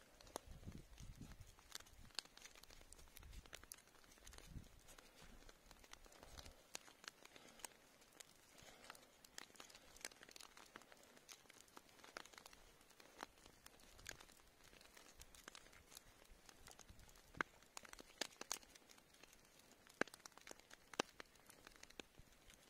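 Faint, sparse crackling and ticking of a smouldering log fire, with a low rumble through the first few seconds.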